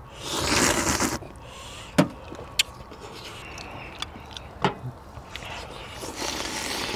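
Eating sounds of people tearing into pork neck bone stew. A loud slurp lasts about a second at the start, a few sharp mouth smacks and clicks follow, and more slurping and chewing comes near the end.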